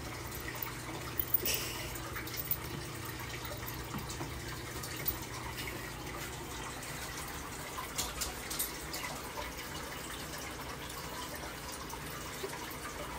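Steady background hum and hiss, with a few faint light clicks.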